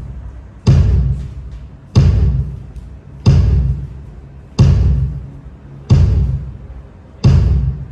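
A deep drum is struck over and over at an even pace, about once every 1.3 seconds, six times. Each hit booms in the bass and then fades out, the way a drum sounds being checked through a PA system.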